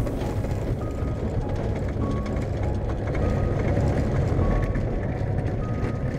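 Light aircraft engine and propeller heard from inside an FK-14 Polaris cockpit as a steady drone while the plane moves on the grass airfield. A short high beep sounds five times, about once every second and a bit.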